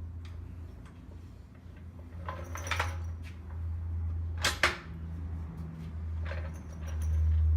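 Metal suspension parts and tools clinking and scraping as the front suspension is worked on by hand: a scrape a couple of seconds in, two sharp metallic knocks about halfway, then another short scrape, over a steady low rumble.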